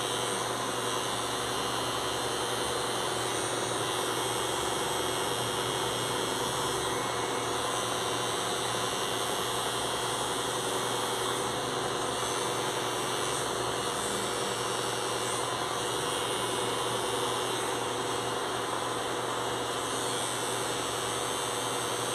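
Gold cordless hair clipper running with a steady buzz as it fades the short hair at the side of the head.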